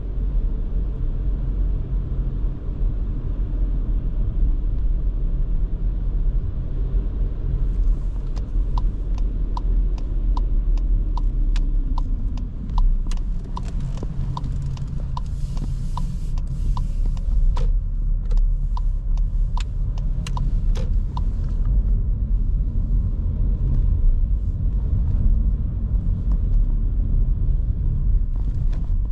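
Steady low rumble of engine and road noise inside the cabin of a Škoda Kamiq with the 1.0 TSI three-cylinder engine. From about eight seconds in until about twenty-one seconds, the turn-signal indicator ticks, about two ticks a second.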